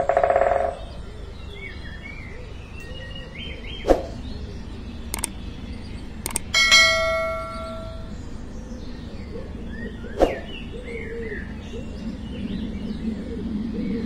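Small birds chirping in the background, overlaid with a subscribe-button sound effect: a short buzzy tone at the start, a few sharp clicks, and a bell chime about six and a half seconds in that rings out and fades.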